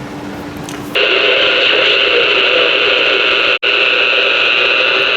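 CB radio receiver hissing with open-channel static from its speaker, starting about a second in, with one very brief dropout about halfway through. Before it, a faint steady hum.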